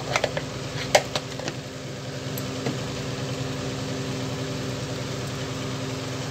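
A steady mechanical hum, with a few light metal clinks of the ladle against the aluminium pressure-cooker pot in the first second and a half.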